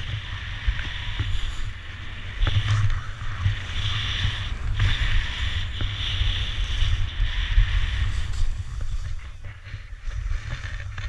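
Skis sliding and scraping over packed snow in a steady hiss, with wind buffeting the microphone in a low rumble; the sound eases off near the end as the skier slows.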